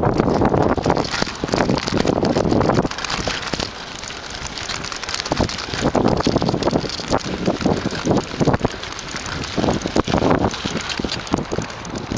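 Wind buffeting the microphone while a bicycle on knobby tyres rides fast over a loose gravel dirt track, with many short rattles and knocks as it bounces over bumps.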